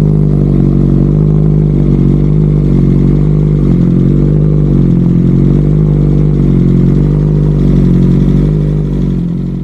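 BMW M1000RR inline-four engine running at idle through Akrapovič titanium headers and an Arrow Pista GP titanium slip-on muffler, loud and steady with a slightly wavering pitch. It dies away at the very end.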